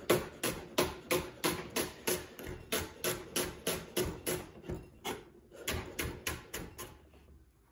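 Chef's knife slicing an onion into strips on a wooden cutting board: a quick, even run of blade knocks on the board, about three a second. The cutting pauses briefly about five seconds in, resumes, then stops near the end.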